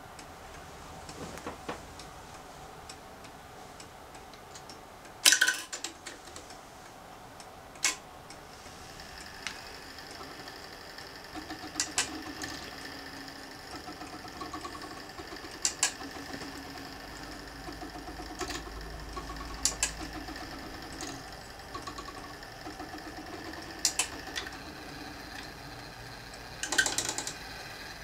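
The exposed brass fusee movement of a Dent grand sonnerie bracket clock running: its mechanism ticks and rattles while its striking work sounds about seven single blows a few seconds apart, the loudest about five seconds in, each leaving a metallic ring that lingers. From about ten seconds in, a rapid busy whirring of the train runs under the blows for some twelve seconds.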